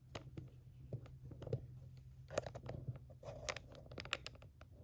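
Handling noise: a scatter of light clicks and knocks as things are picked up and moved about, over a faint steady low hum.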